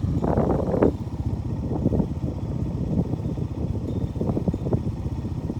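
Strong wind of an arriving snowstorm buffeting the microphone: a low rumble that flutters rapidly.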